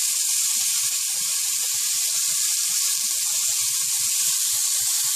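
Cubes of beef searing in hot olive oil in a heavy pot, left undisturbed to brown. A steady, high sizzling hiss with small irregular pops.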